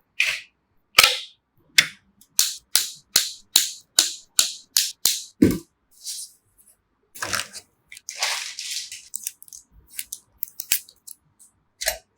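A quick row of sharp clicks, about three a second, then a short rustle and a few scattered clicks.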